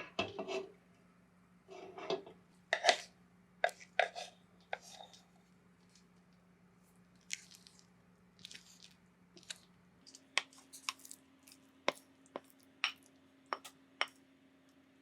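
Scattered light taps and clicks of kitchen utensils and dishes being handled during food preparation, over a faint steady hum that shifts higher about ten seconds in.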